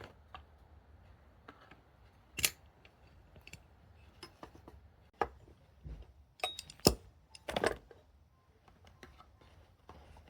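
Scattered sharp clicks, clinks and knocks of kitchen items being handled, the loudest about two and a half seconds in and again around seven seconds in.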